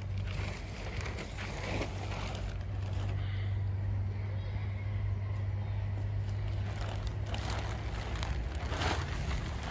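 A steady low hum that fades out about seven seconds in. Plastic sheeting rustles around seven to nine seconds in, as a worker handles a plastic tunnel cover over the seedling beds.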